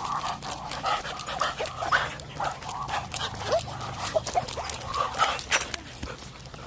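Huskies whining and yipping, many short rising squeals, over frequent small clicks and rustles.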